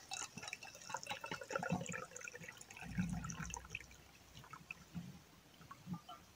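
Liquid trickling and splashing as it is poured from a stainless steel vacuum flask into its metal cup, thinning to a few drips in the second half. A soft low thump comes about three seconds in.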